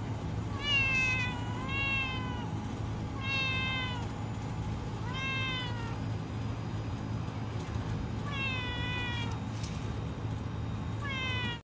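Domestic cat meowing repeatedly: about six drawn-out meows, each sliding slightly down in pitch, with a low steady hum underneath.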